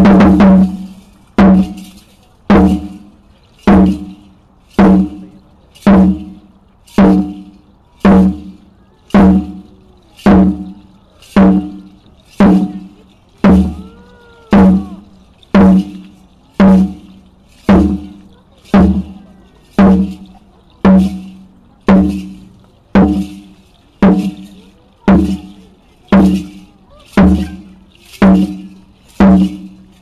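A large drum accompanying Aztec-style dance beats a steady, even pulse of single strokes, a little under a second and a half apart, each stroke ringing with a low booming tone.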